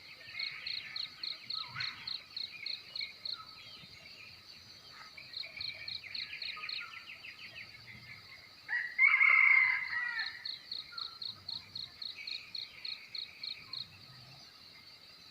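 Morning countryside chorus. A cricket chirps in steady high pulses, about four a second, while assorted birds call and trill over it. One loud, harsh bird call about nine seconds in is the loudest sound.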